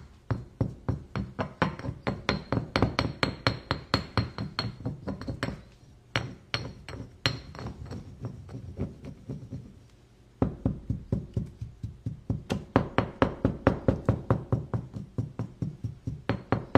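Stone pestle pounding in a volcanic-stone mortar (molcajete), a steady run of sharp knocks about three a second, with a break of a couple of seconds partway through.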